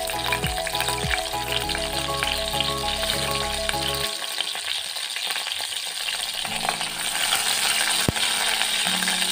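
Curry leaves and whole spices sizzling and spluttering in hot coconut oil in a non-stick pan. A wooden spatula stirs them near the end, with a single sharp knock about eight seconds in.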